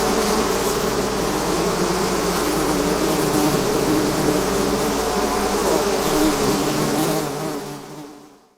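A swarm of bees buzzing: a dense, steady hum of many wings with a wavering pitch. It fades out over the last second or so.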